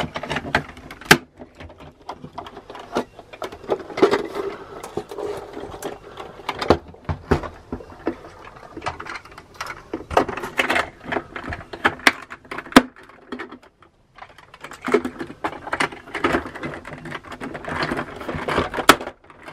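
Hard plastic legs of a vintage AT-AT toy being forced into the body, with many sharp clicks, knocks and rattles of plastic on plastic. A few louder snaps stand out, one about 13 seconds in and one near the end.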